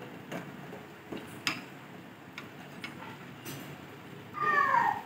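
Steel spoon clinking lightly against a steel pan a few times while sago simmering in milk is stirred. About four seconds in, a louder short cry that falls in pitch.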